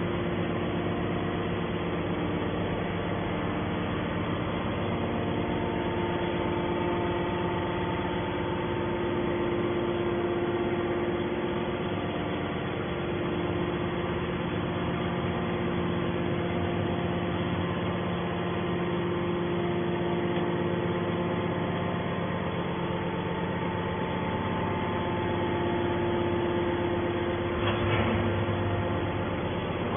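Hydraulic metal scrap baler's pump and motor running steadily: a constant hum with several held tones, and one short knock near the end.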